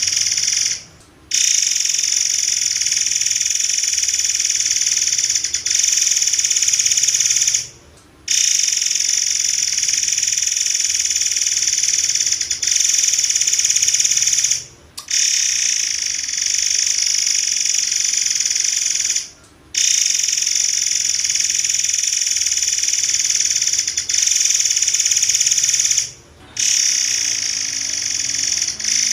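Murai air bird singing a dense, high-pitched rapid trill in long unbroken bouts of several seconds, broken by five brief pauses.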